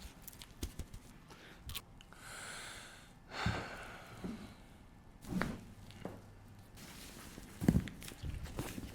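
Breathing and sighing during a chiropractic adjustment, with a breathy exhale about two seconds in and scattered short knocks and clicks from the handling. The loudest is a single sharp knock near the end.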